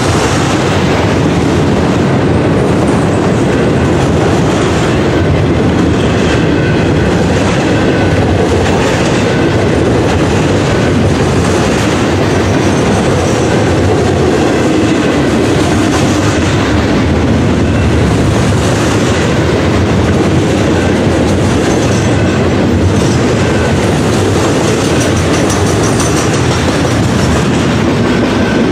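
Freight cars loaded with garbage containers rolling past at close range: a steady, loud rumble of steel wheels on the rails.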